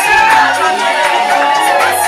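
Loud music, its bass moving in held notes that change every half second or so, with crowd noise underneath.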